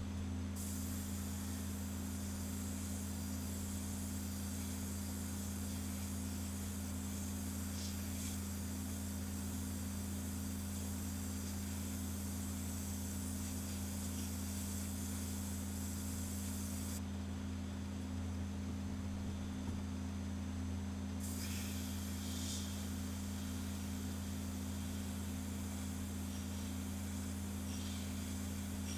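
Airbrush spraying paint in a steady hiss that starts about half a second in, stops for a few seconds a little past halfway, then resumes, over a steady low hum.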